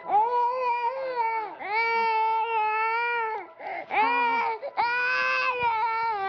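A toddler boy crying hard: four long, high wails in a row with short breaths between, the third one brief.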